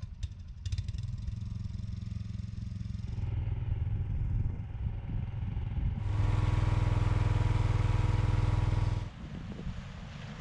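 Small petrol engine of a water pump running steadily, pumping water out of a hole in the tide flat. It gets louder for about three seconds in the second half, then drops back.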